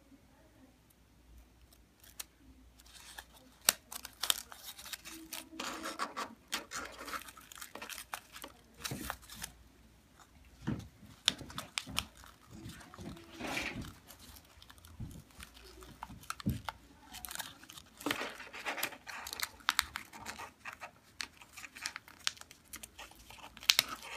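Folded paper of a modular origami flower rustling and crinkling as hands press and adjust its petals. It is faint for the first couple of seconds, then comes as irregular crackles and taps.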